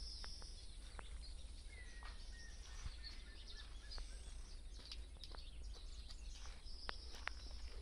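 Outdoor ambience: small birds chirping and twittering, with a short whistled note about two seconds in, over a steady low rumble. Scattered sharp clicks run through it, two louder ones near the end.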